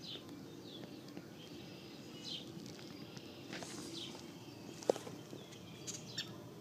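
Quiet outdoor ambience under a faint steady hum, with scattered short high bird chirps and one sharp click about five seconds in.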